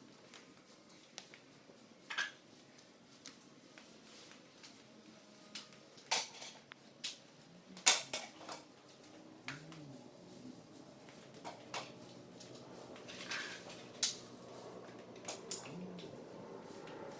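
Scattered sharp clinks and knocks from floor-coating work, roller poles and frames against metal paint cans and buckets, while the finish is rolled onto a concrete floor. The loudest knock comes about eight seconds in.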